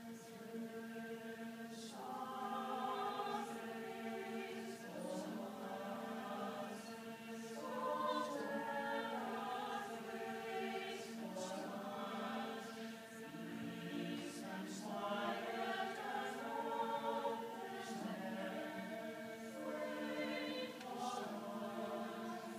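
Chamber choir singing words in several-part harmony, with a low note held steady underneath.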